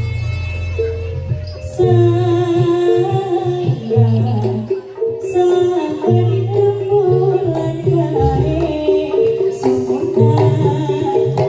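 Live jaranan music from a Javanese gamelan-style ensemble: drums and deep gong-like strokes under a pitched melody line, with a cymbal crash about every four seconds.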